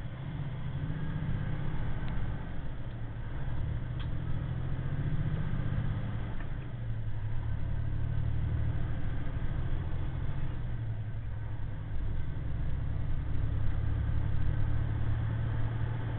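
Semi truck's diesel engine running under way, heard inside the cab as a steady low drone over road noise. The engine note changes about six seconds in and dips briefly about twelve seconds in.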